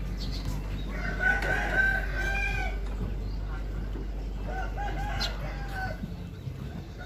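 Rooster crowing twice, each crow about a second and a half long, over a steady low rumble.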